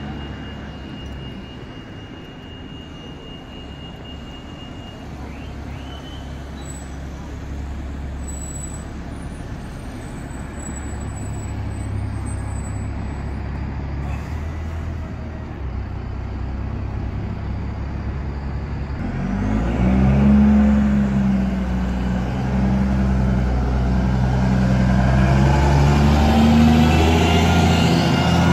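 BMC Condor single-deck bus with a blown exhaust, its diesel engine running with a low rumble that slowly builds. From about two-thirds of the way through it gets much louder as the bus pulls away close by, with a strong, rough engine note that the leaking exhaust makes.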